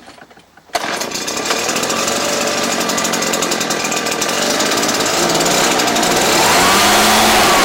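Husqvarna backpack leaf blower's two-stroke engine starting from a pull of the starter cord. It catches about a second in and runs steadily with the fan blowing, getting a little louder near the end.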